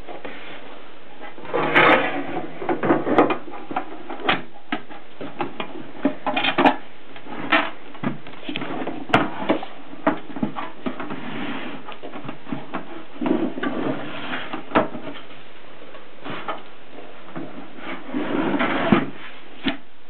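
A Gossen Tippa portable typewriter being packed into its case: the lid is handled and fitted on, with scrapes, knocks and sharp clicks at irregular intervals, busiest about two seconds in and near the end.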